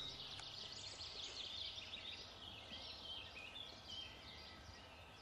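Faint birdsong: small birds chirping and twittering over a low background hiss.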